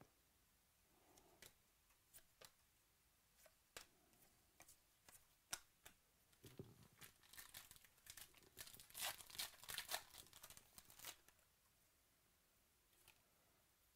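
Faint handling of a foil trading-card pack: a few soft clicks and taps of cards being handled, then several seconds of crinkling and tearing as the wrapper is ripped open, ending about three seconds before the end.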